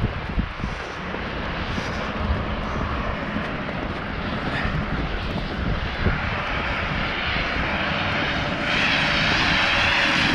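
Traffic on a slushy street: a steady hiss of tyres through wet snow with gusty wind rumble on the microphone, swelling near the end as a car passes close. The passing car is noisy.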